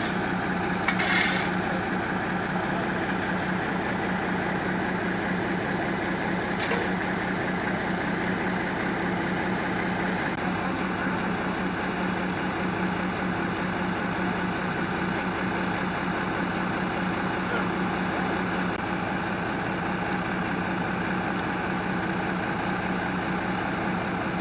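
Steady hum of a truck's diesel engine idling, with one light knock about seven seconds in.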